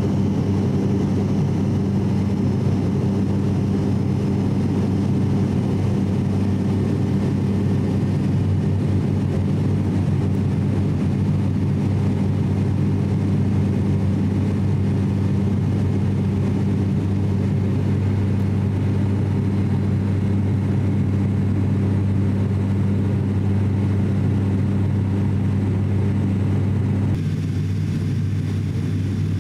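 Cabin sound of an ATR 42-600's Pratt & Whitney PW127 turboprops in flight: a steady, loud low propeller drone with a deep hum. About 27 seconds in, the drone grows slightly softer and duller.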